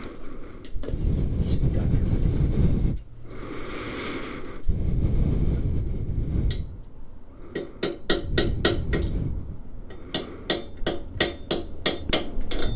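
Quick, sharp light hammer taps on metal, about three or four a second, in two runs in the second half, after low rumbling noise in the first half.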